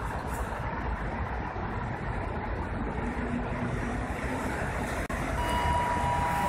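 Steady low rumbling noise of a railway station, with wind on the microphone. About five seconds in, a few steady high tones set in one after another, each a little lower, from an EN57AL electric multiple unit standing at the platform.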